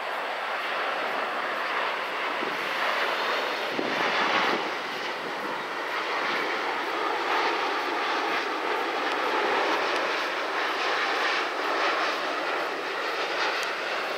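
Boeing 787 airliner's twin turbofan engines and airflow, a steady jet noise as it flies low on final approach with landing gear extended. A faint whine slowly falls in pitch partway through.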